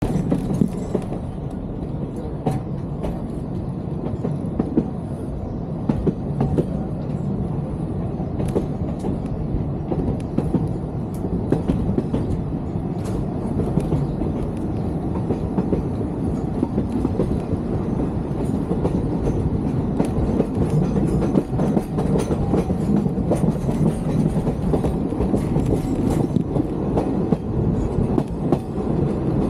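Vintage Sóller railway train running along the line: a steady rumble with frequent sharp clicks and knocks from the wheels and carriages.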